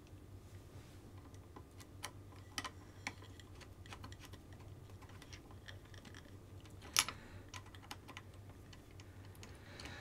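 Faint, irregular small clicks and taps of the tiny metal pins, nuts and collars of a Kabolite K961 RC excavator's quick-disconnect being handled and fitted by hand, with one sharper click about seven seconds in.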